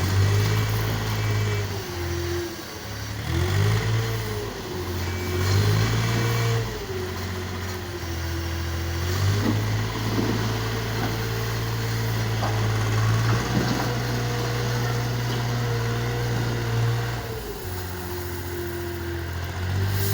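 An engine running and revving: its pitch rises and falls several times, holds higher for several seconds, then drops back down near the end.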